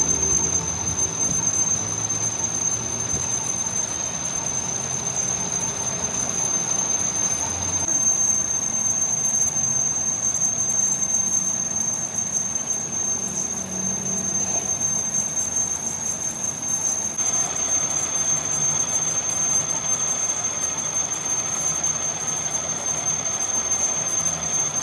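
Metalworking machinery running, a constant high-pitched squeal over a steady hiss, changing slightly twice.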